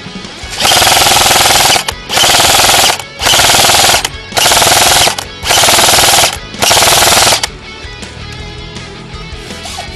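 Six loud bursts of harsh noise, each about a second long with short gaps between them, over background music.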